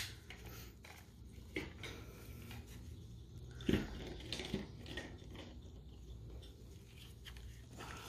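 Faint handling noises from gloved hands turning polymer pistol grip modules and magazines, with a few light clicks and knocks. The loudest knock comes a little past halfway.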